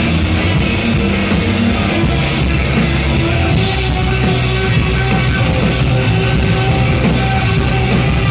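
Rock band playing live and loud: electric guitars, bass and drum kit, with sustained guitar notes over a steady beat, recorded on a phone's microphone from the crowd.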